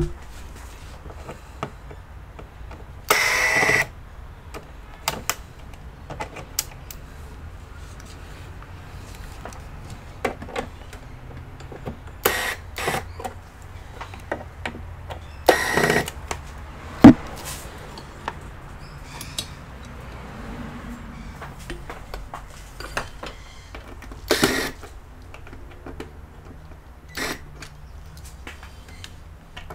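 Scattered clicks and taps of tools and plastic and metal parts being handled while an all-in-one computer is taken apart, with four louder short noisy bursts, the longest a little past the first three seconds.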